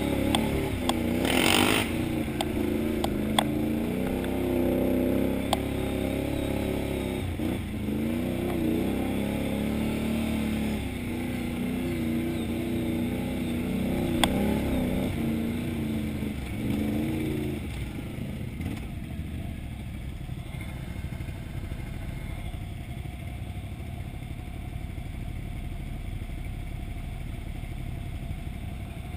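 Can-Am XMR 1000R ATV's V-twin engine running through deep mud and water, its note rising and falling with the throttle, with a few sharp knocks and clatter from the machine. About two-thirds of the way through it drops to a lower, quieter, steadier note.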